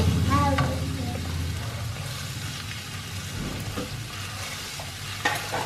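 Onions and ginger-garlic paste sizzling in oil in a stainless steel kadai on low heat, stirred with a wooden spatula, with a sharp knock of the spatula on the pan about five seconds in.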